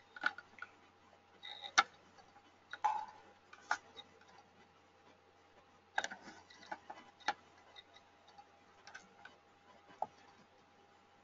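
Scattered, irregular sharp clicks and taps, a dozen or so, over a faint steady hum.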